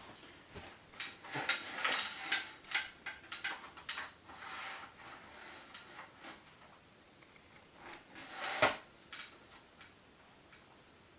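Parts of a Rockville RVSL1 tripod stand being handled. A run of light clinks, rattles and knocks fills the first few seconds, and one loud, sharp clack comes near the end.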